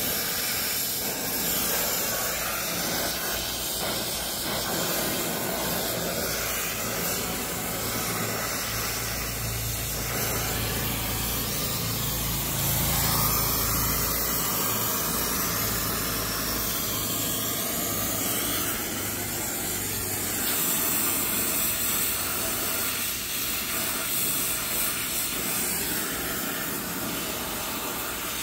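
Brazing torch flame hissing steadily as it heats a copper pipe joint.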